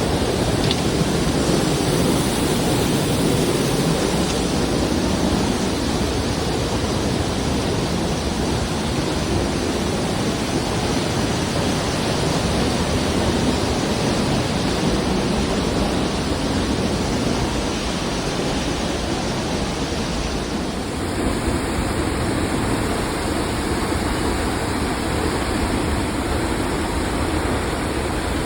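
Waterfall heard close up: a steady, loud rush of falling water, its tone shifting slightly about three-quarters of the way through.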